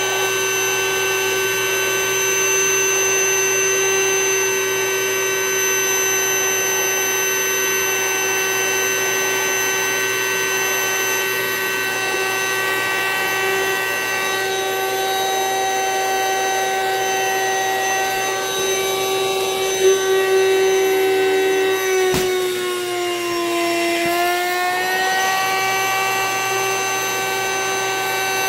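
Small electric vacuum pump switching on and running with a steady whine, pulling the air out of a vacuum storage bag. About twenty-two seconds in, its pitch sags for a couple of seconds and then comes back up.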